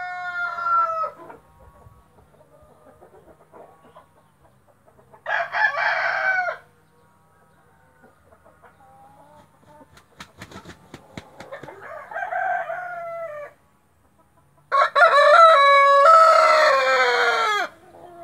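White splash Brahma rooster crowing several times. The longest and loudest crow comes near the end, a few seconds after a quick burst of wing flapping.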